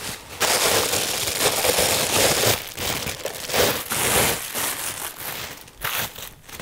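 Bubble wrap and a clear plastic bag rustling as they are pulled off a helmet being unwrapped. The rustling starts about half a second in and thins out over the last couple of seconds.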